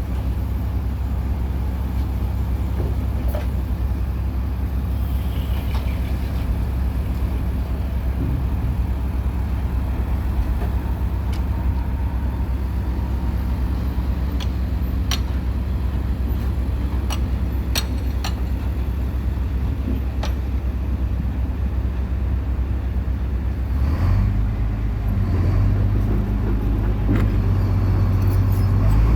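A low, steady engine drone with a few sharp clicks over it; about 24 seconds in, it grows louder and its pitch shifts, as if revving.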